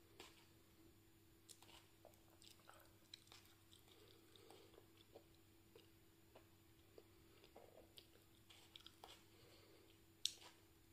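Faint chewing of a raw hot pepper: soft, irregular wet clicks from the mouth, with a couple of louder mouth clicks near the end.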